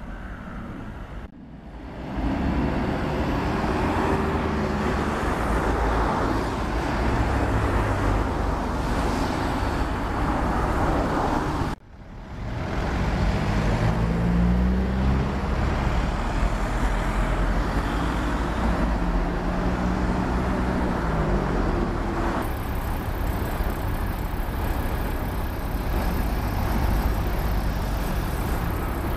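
Road traffic on a wet street: car engines and tyre noise, with engine pitch rising and falling at times. The sound drops out briefly twice, about a second in and near the middle.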